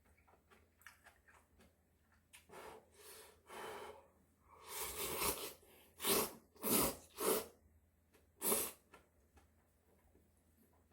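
A person's breath: a few soft breaths, then a run of short, loud bursts of breath about halfway through, four of them in under three seconds.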